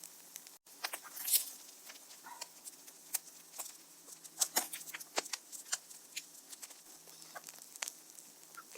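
Scattered light clicks and taps, irregular and sparse, as of small objects being handled and set down.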